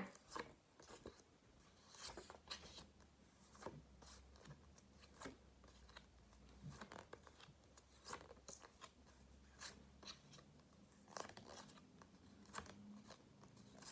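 Near silence with faint, scattered clicks and paper rustles, about one every second or so, from flash cards being handled and shown one after another.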